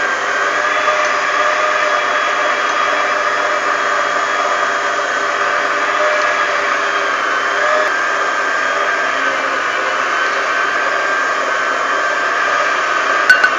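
Klaz stand mixer's motor running steadily with a whine as it beats pumpkin cake batter, mixing in flour. Two short sharp clicks near the end.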